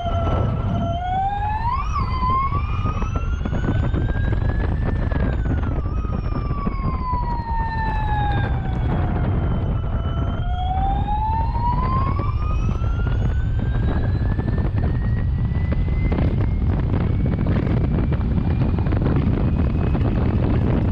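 Audi e-tron FE06 Formula E car's electric powertrain whining, the pitch climbing as it accelerates, falling as it slows about halfway through, then climbing steadily again, with a brief upward flick about two seconds in. A steady low rumble of wind and road noise runs beneath the whine.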